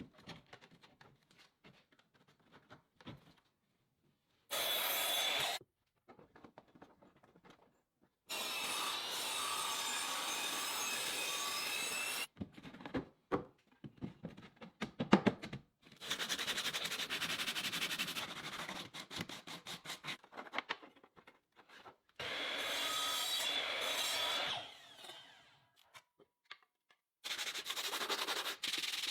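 A power tool working wood, running in several bursts of one to a few seconds that start and stop abruptly, with rubbing and sharp knocks in between.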